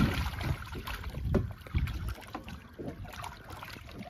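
Scattered light knocks and rattles as a freon-canister jug line is hauled in by hand over the side of a small boat, over a low rumble of wind on the microphone.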